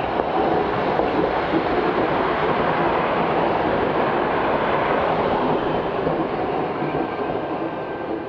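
Iyotetsu orange streetcars running past on street track: a steady rumble of steel wheels on the rails, mixed with a car passing on the road, easing off near the end.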